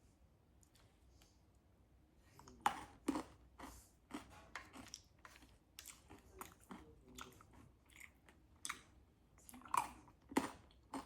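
A person chewing and biting food at close range, with irregular crisp crunches and small clicks starting about two seconds in.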